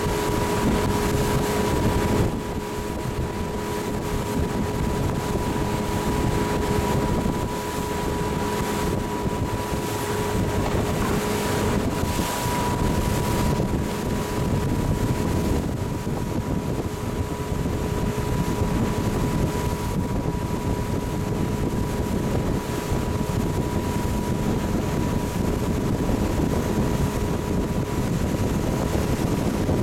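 A boat's motor running steadily under way, with a steady hum and wind rushing over the microphone.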